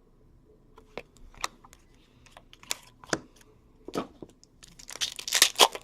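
Trading cards clicking and tapping as they are handled and set down, a few separate taps, then a card pack wrapper crinkling and tearing open during the last second or so.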